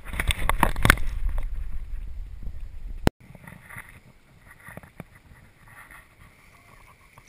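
Handling noise on a GoPro: rubbing and knocking against the camera body for about three seconds, ending in a sharp click. After that comes a quieter stretch of river water running, with a few light taps.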